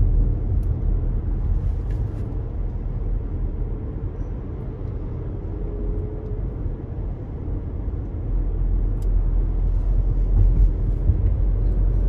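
Steady low rumble of road and engine noise heard from inside a moving car's cabin. It grows louder about two-thirds of the way through.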